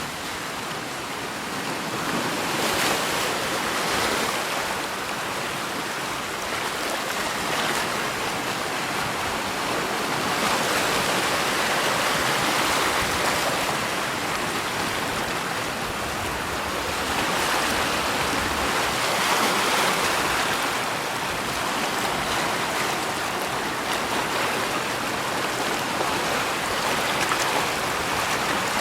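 Rushing water, a steady wash that swells and eases every few seconds.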